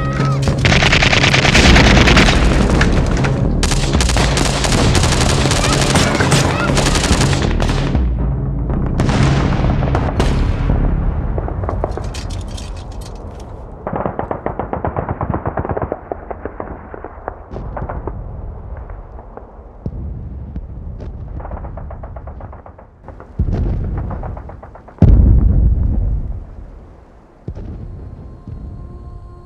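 Battle sound: heavy, dense gunfire and explosions, then rapid bursts of automatic fire, thinning out before two heavy booms near the end.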